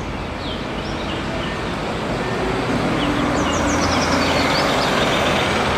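Red single-decker bus driving past: engine hum and tyre noise growing louder as it comes close, loudest about three to five seconds in. Birds chirp in the background.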